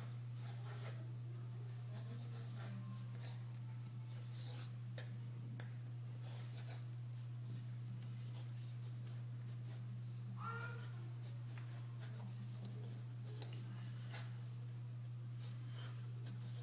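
Pencil sketching on paper: short scratchy strokes that come and go, over a steady low hum.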